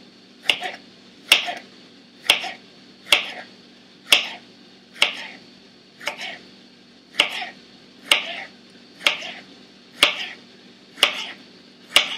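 Knife slicing through peeled Chinese okra (angled luffa) onto a cutting board, one crisp stroke about every second, about a dozen cuts in a steady rhythm.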